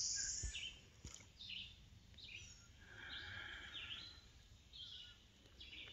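Faint bird calls: a series of short, high chirps spaced irregularly over a quiet outdoor background, with a brief hiss at the very start.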